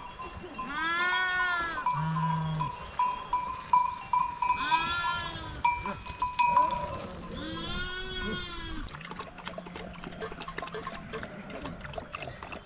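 A flock of sheep and goats bleating: several calls, three of them long and wavering, spread through the stretch, with a small bell ringing steadily in the first half.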